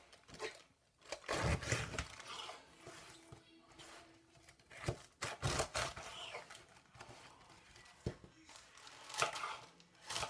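Head of Napa cabbage being broken apart by hand and sliced with a knife on a wooden cutting board: irregular crisp tearing and crunching of the leaves, with knocks of the blade on the board.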